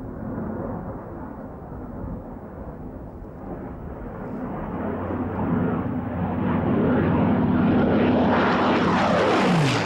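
Hawker Hurricane's Rolls-Royce Merlin V12 engine on a low flypast, growing steadily louder as the fighter approaches, then dropping in pitch as it passes close by near the end.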